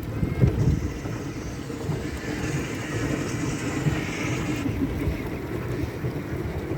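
Steady rumbling noise of a small boat out on a lake, with a higher hiss over the first four seconds or so that then cuts off suddenly.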